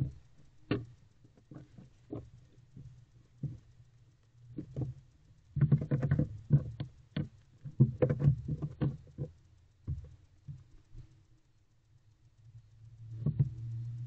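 Irregular scratches, taps and scuffing as a barn owl shifts about inside a nest box, right against the microphone. The sounds come thickest about six and eight seconds in, and a low steady rumble sets in near the end.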